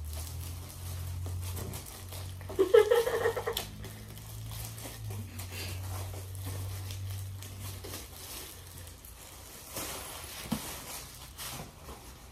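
Clear plastic packaging crinkling and rustling as a black item is unwrapped from its bag by hand, under a low steady hum that stops about eight seconds in. A short voice sound comes about three seconds in.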